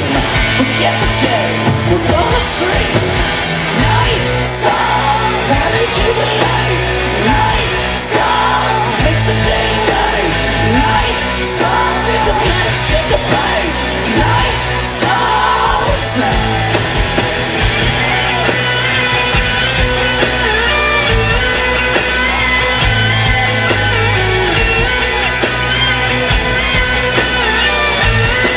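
Live hard rock band playing full-on: distorted electric guitars, bass and drums with cymbal crashes, and a lead vocalist singing, heard from within the audience in a large hall.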